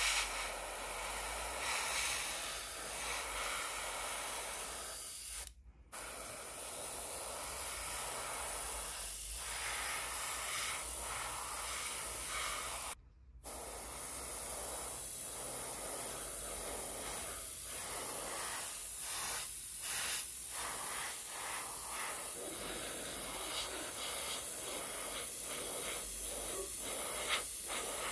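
Gravity-feed airbrush spraying thinned acrylic paint: a steady hiss of air and paint, breaking off briefly twice.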